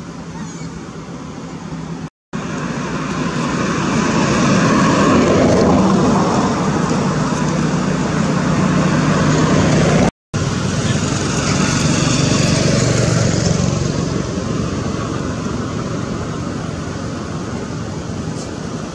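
Road traffic: a motor vehicle's engine and tyres, growing louder over a few seconds, staying loud and then slowly fading as it passes. The sound cuts out completely twice, briefly.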